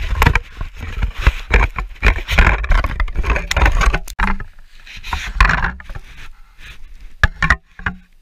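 A pickerel flopping and thrashing on the ice right by the microphone: a fast run of wet slaps and scrapes, easing off with a few last slaps near the end.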